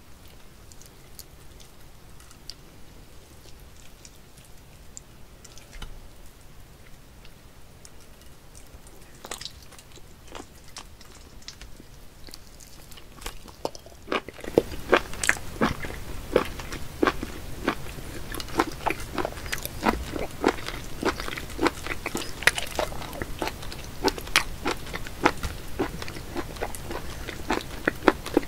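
Wet, sticky clicks and smacks of raw live octopus handled close up. The clicks are faint and scattered at first, then about halfway through they become louder and come thick and fast.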